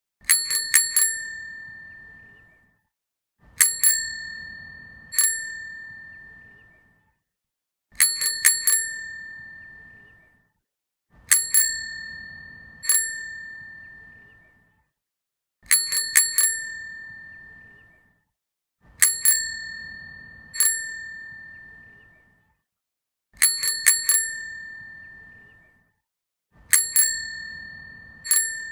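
Bicycle bell rung over and over, in quick flurries of two to four dings about every three to four seconds, often with one more ding a second later. Each ring fades out slowly.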